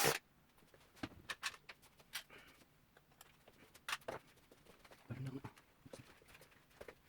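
Scattered sharp clicks and light knocks of small parts and tools being handled while the synthesizer is taken apart, the loudest knock right at the start. A short low pitched sound about five seconds in.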